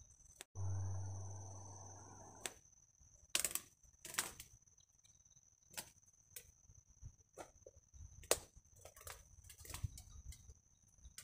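Irregular sharp knocks, about one every second or so, over a steady high-pitched tone. Near the start a louder sound begins abruptly and fades away over about two seconds.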